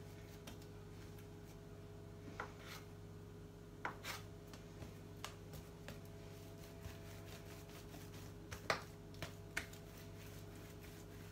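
Metal bench scraper cutting bread dough on a worktop: a few faint, scattered clicks and knocks as the blade meets the counter and the pieces are moved, over a steady low hum.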